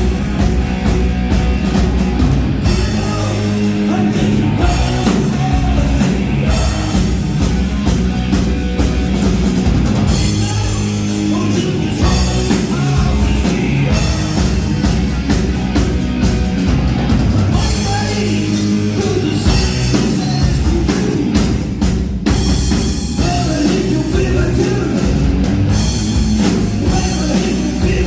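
Hard rock band playing live, loud and steady, with a drum kit keeping the beat under the guitars and bass.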